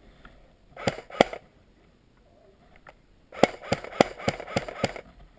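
Airsoft gun firing: two single shots about a second in, then a quick string of about six shots over a second and a half.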